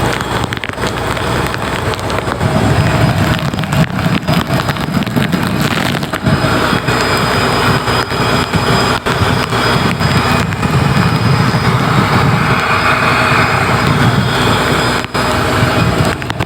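Wind gusting over the microphone and rain crackling against it on a fishing boat in rough weather, with a rumbling boat engine running underneath.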